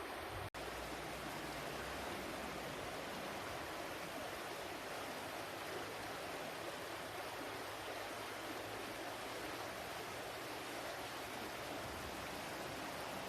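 Running water flowing steadily as an even, continuous rush, with a brief dropout in the sound about half a second in.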